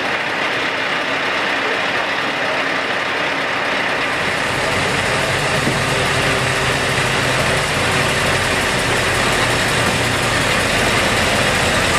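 Scania S 730 heavy-haulage tractor's V8 diesel running steadily, its low engine hum growing stronger about four seconds in as the truck comes close.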